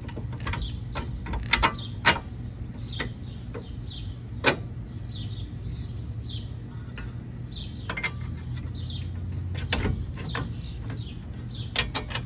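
Scattered sharp metal clicks and knocks, the loudest about two and four and a half seconds in, as the front hub, brake assembly and new strut of a Honda Civic are worked into place by hand. Birds chirp in the background throughout.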